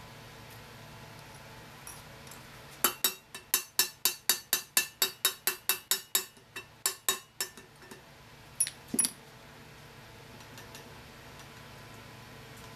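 Hand tool at work on the steel Dana 30 differential housing: a fast run of sharp metallic clicks, about four or five a second, for some four seconds, then a few more and a last double click.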